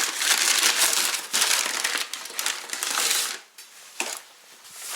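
Takeout bags being opened and rummaged through: loud rustling and crinkling for about three seconds, then quieter, with a brief sharp knock about four seconds in.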